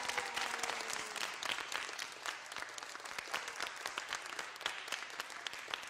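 Audience clapping, dense and irregular, easing off slightly toward the end.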